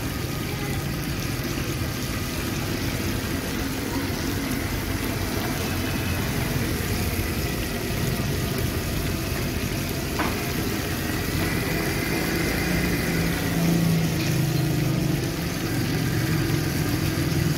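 A motor vehicle engine idling steadily, a low hum under general street noise, growing a little louder in the second half.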